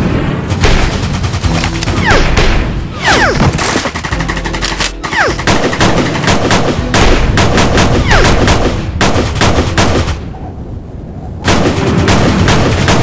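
Heavy gunfire: rapid machine-gun and rifle shots in quick succession, with several falling whistles a few seconds in. The firing eases off for a moment near the end, then picks up again.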